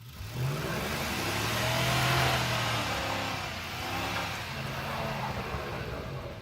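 Pickup truck engine revving hard, rising to a peak about two seconds in and then easing, with the tires spinning on slick packed snow.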